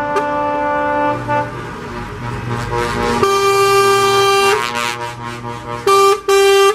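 Truck air horns honking. Several horn tones sound together at first, then one long blast, then two short blasts near the end, over a low rumble of passing trucks.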